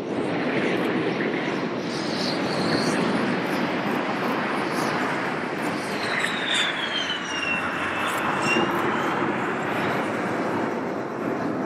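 Bluebird K7 hydroplane's Bristol Siddeley Orpheus jet engine running as the boat travels at speed across the water, a steady dense rush of jet noise. About six seconds in, a high whine falls in pitch as the boat passes.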